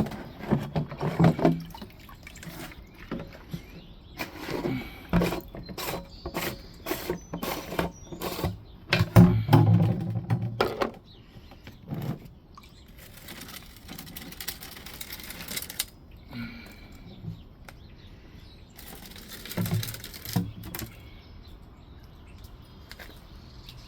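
Rainwater being drained from a tent into buckets: water pouring and splashing, with knocks and clatter from the containers being handled. Pours come in several stretches, the longest about halfway through.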